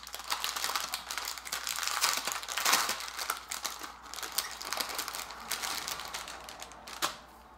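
Packaging crinkling and rustling as small kit parts are handled, with scattered small clicks; it stops with a sharp click near the end.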